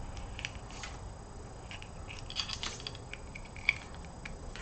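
Light plastic clicks and handling of a pneumatic solenoid valve's plug connector and its wires as it is fitted back together, with a small cluster of clicks midway and one sharper click near the end.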